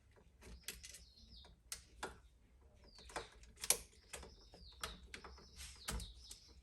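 Irregular sharp clicks and ticks of hand tools working a stripped electrical wire into a hook for an outlet's terminal screw, with a bird chirping repeatedly in the background.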